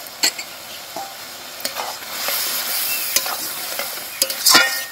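Spiced chicken masala sizzling in a large iron kadai as a metal spoon scrapes and knocks against the pan while stirring. The sizzling swells about two seconds in, and the loudest scrapes come near the end.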